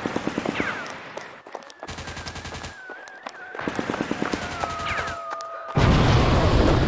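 Dubbed-in war sound effects: rapid machine-gun fire in bursts, under a high whistle that slides down in pitch. Near the end a sudden loud blast sets in and carries on as a dense rumble.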